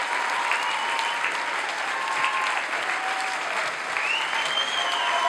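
Theatre audience applauding steadily, with the performers on stage clapping along.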